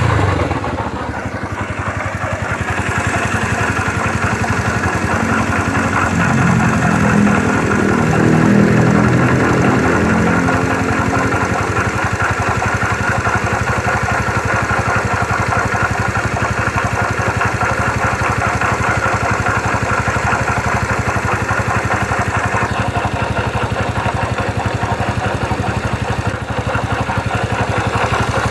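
Yamaha Factor YBR 125's single-cylinder four-stroke engine idling just after starting, its note swelling briefly between about six and ten seconds in before settling into a steady idle. The owner is worried about a strange noise from the engine.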